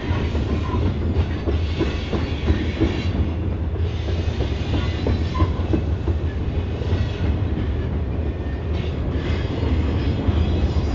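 Pair of EMD GP38-2 diesel locomotives, each with a 16-cylinder two-stroke 645 engine, working under load with a loud, steady low exhaust, while train wheels clack over the rail joints.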